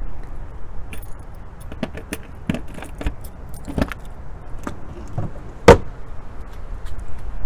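Keys jangling on a key ring while a key is worked in an RV baggage door's lock, with scattered small clicks and one sharp, loud click about two-thirds of the way through.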